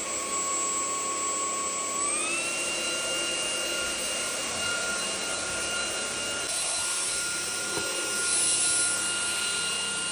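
Cordless stick vacuum running, a steady motor whine over rushing air; about two seconds in the motor speeds up and its whine steps to a higher pitch. The air rush grows a little louder near the end.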